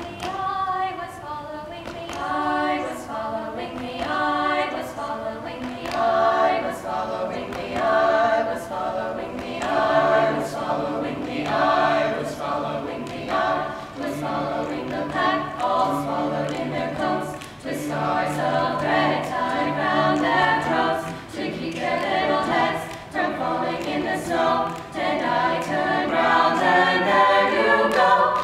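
Mixed-voice a cappella ensemble, young women and men, singing in harmony without instruments, with a low held bass line coming in about a third of the way through. The singing grows louder near the end.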